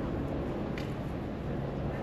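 Rainy street ambience: a steady hiss of rain with the low, even hum of a running vehicle engine, and one short tap about a second in.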